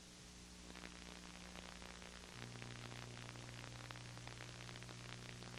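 Faint background noise of an old off-air videotape recording with no programme sound: steady hiss and low hum, a second lower hum tone joining about two seconds in, and a scatter of small crackles.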